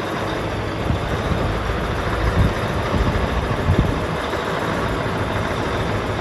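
John Deere 8850 tractor's V8 diesel engine idling steadily, with two brief louder low bumps in the middle.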